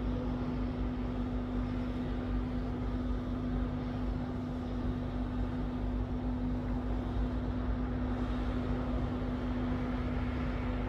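A steady droning white-noise background: a low rumble and hiss with one constant low hum through it, unchanging in level.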